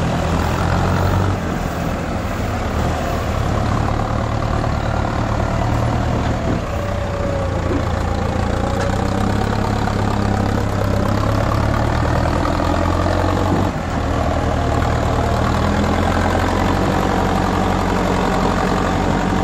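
Diesel tractor engine running steadily at low revs as it pulls a trailer heavily loaded with sugarcane.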